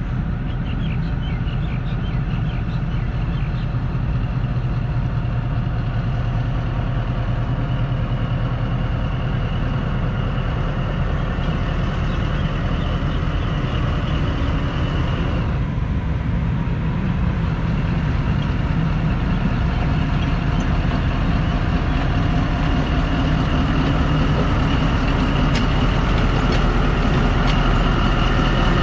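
Diesel locomotive engine running steadily as a passenger train pulls out of the station, growing slowly louder, with a brief dip about halfway through.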